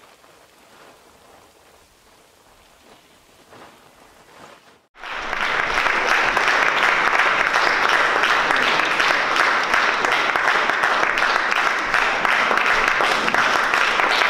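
Faint patter for about five seconds, then a sudden switch to loud, steady audience applause that keeps going.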